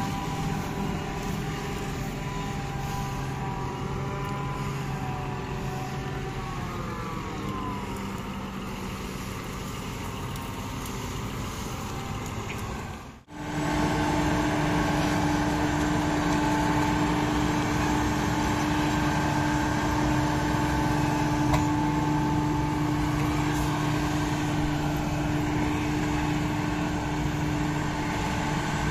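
John Deere 8300 self-propelled forage harvester and the tractors beside it running steadily while chopping maize, with the engine pitch dropping about seven seconds in. After a sudden break about thirteen seconds in, a steady, higher machine hum runs on.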